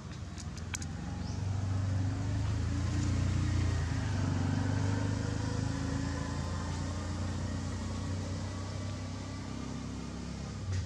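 A motor vehicle's engine running out of sight, a steady low hum that swells about two seconds in and eases off slightly later. A few sharp clicks come in the first second.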